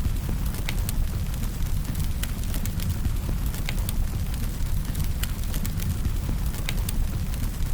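Firewood burning with a steady low rumble and frequent irregular crackles and pops.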